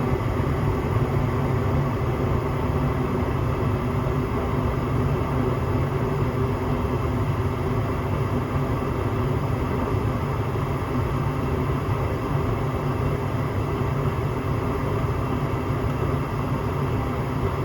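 Gas furnace firing steadily, its burners lit and the inducer draft fan running: a steady low rumble with a faint hum that does not change. The burners stay lit now that the dirty flame sensor has been cleaned, so the furnace is no longer short-cycling.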